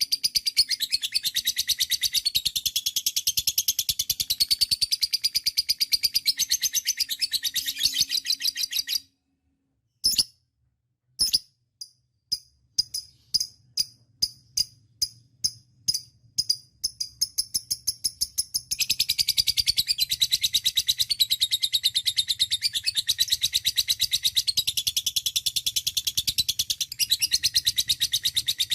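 Lovebird 'ngekek': a long, rapid, shrill chattering trill. It breaks off about nine seconds in, returns as separate sharp chirps a few per second, and then the fast continuous chatter starts again about two-thirds of the way through.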